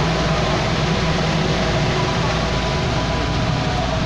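Steady machine hum and even rushing noise from an electric corn-roasting rotisserie and its exhaust fan running without a break.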